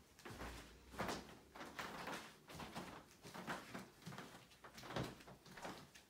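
Footsteps and handheld-camera handling noise in an empty room: a string of soft, irregular knocks, about one or two a second.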